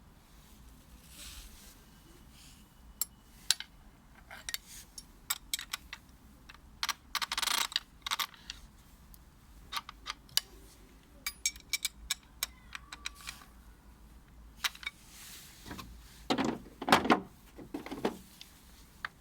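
Unpacking and handling sounds: scattered sharp clicks and light knocks of plastic packaging and tool parts, a brief rustle about a third of the way in, and a few heavier thumps near the end.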